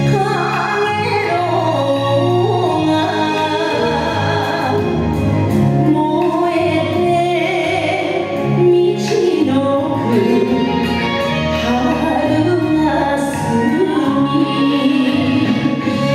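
A song with a singer's wavering, held vocal line over steady instrumental accompaniment, the music for a Japanese dance.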